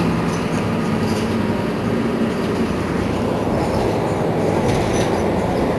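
Mercedes-Benz Citaro C2 city bus idling while stationary, a steady low engine rumble.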